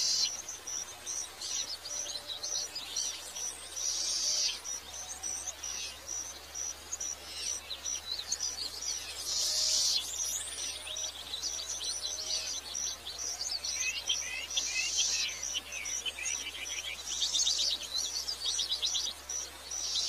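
Tropical forest chorus of birds and insects: a high, thin chirp repeats evenly about three to four times a second, while other birds call and trill over it in short clusters, some trills sliding down in pitch.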